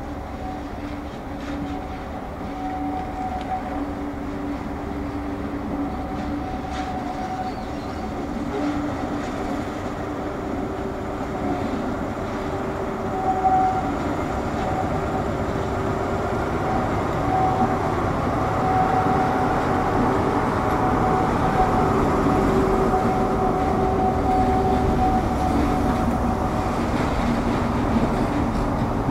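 Diesel locomotive hauling a train slowly past, its engine running with a steady hum that grows louder as the train draws near. There is one sharper knock about halfway through.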